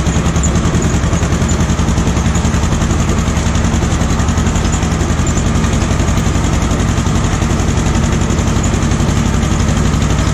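Ursus C-330M tractor's two-cylinder diesel engine running steadily with a fast, even pulse.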